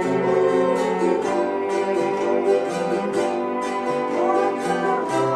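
Home ensemble of ukuleles, piano and cello playing a slow song: strummed ukulele chords over piano with a bowed cello line, and voices humming the melody.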